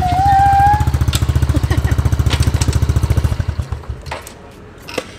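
Small Honda dirt bike's single-cylinder engine running at a quick, even putter, with a short high squeal right at the start; about three and a half seconds in it is switched off and dies away.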